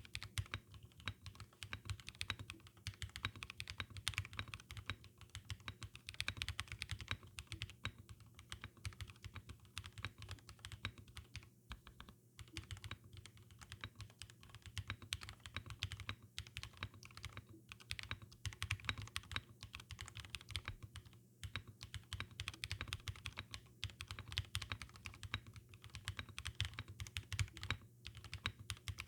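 Typing on a Qwertykeys QK65 mechanical keyboard with lubed Durock POM linear switches, an FR4 plate, PBT double-shot keycaps and only case foam for dampening. It is a fast, steady stream of keystrokes with a few brief pauses.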